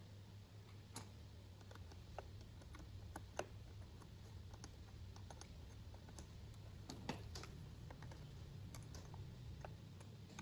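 Faint, irregular light clicks and taps, a couple of them louder, over a low steady hum.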